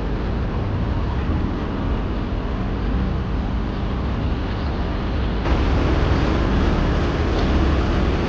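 Steady low rumble of a car in motion: road and engine noise, growing a little louder about five seconds in.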